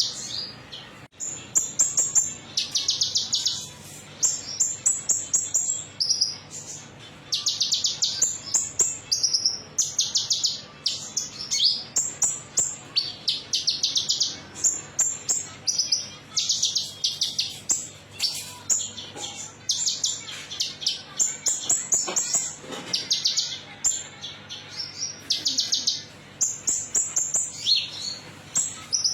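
Small songbird known to Indonesian bird-keepers as konin, in its 'metalik' song variant, singing phrase after phrase of high-pitched, rapid trills, each under a second long, separated by short pauses.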